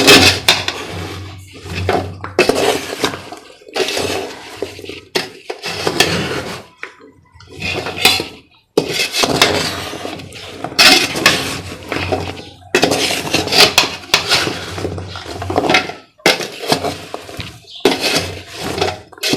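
Crisp fried gavvalu being stirred and turned over in a pan of sugar syrup, a repeated scraping, rattling clatter of the hard shells against the pan in uneven strokes every second or two, as they are kept moving until the sugar coats them.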